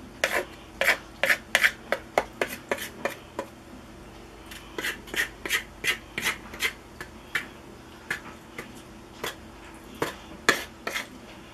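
Metal fork stirring flour into banana bread batter in a large mixing bowl, scraping and clicking against the sides in quick strokes, in bursts with brief pauses.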